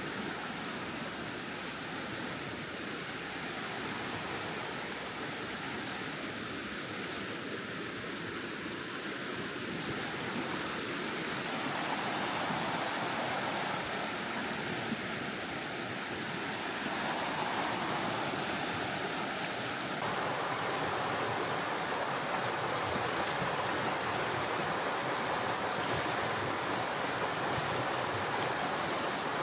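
Fast-flowing creek water rushing over rocks, a steady rush that grows louder in steps about halfway through.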